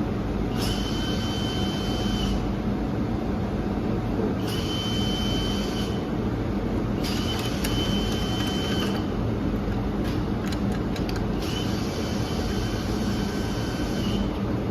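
MIG welder laying four short welds of about two seconds each, each with a steady high whine and hiss, over a constant low hum.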